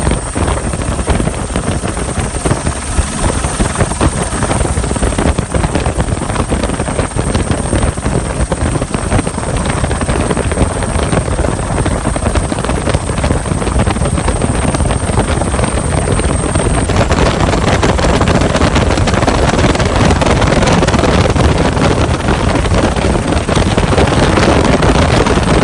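Airbus AS350B3 helicopter's rotor and turbine heard from an open-door cabin in flight, with wind rushing over the microphone. A thin high whine stops about two-thirds through, and the wind rush gets louder after that.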